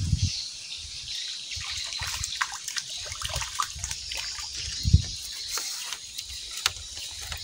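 Small irregular splashes and trickling water in an open patch of a duckweed-covered pond as a fish thrashes at the surface, with a dull thump near the start and a louder one about five seconds in.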